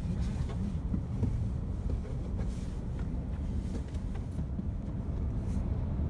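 Steady low rumble of a car on the move, with wind buffeting the microphone.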